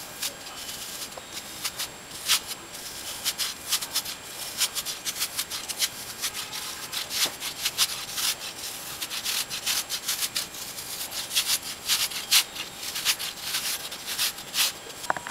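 A block of cheese grated on a flat handheld stainless steel grater: repeated short rasping strokes, about two to three a second.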